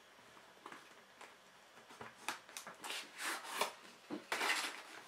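Small cardboard product box being handled and opened, with short scuffs and rustles of cardboard sliding against cardboard. It is nearly quiet at first; the scuffing starts about two seconds in and comes several times over the last three seconds.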